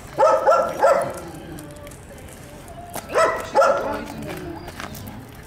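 A dog giving short, high-pitched yelping whines in two runs, one just after the start and another about three seconds in.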